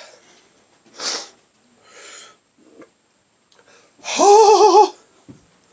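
A man breathing hard from hot-sauce burn: a sharp breath about a second in, a softer one after it, then a loud wavering groan about four seconds in.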